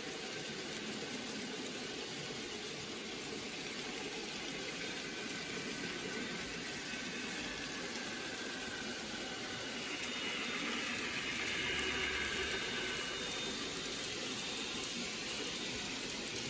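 N gauge model train running on the layout track: a steady rolling hiss that grows a little louder for a few seconds past the middle, as it comes nearest.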